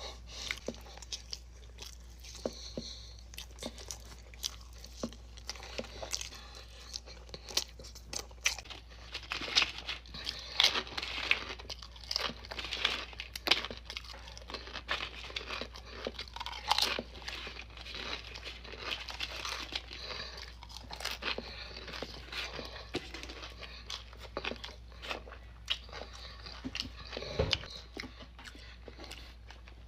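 Close-miked mouth sounds of eating: crunchy chewing and biting with irregular crackly clicks, busiest in the middle, over a steady low hum.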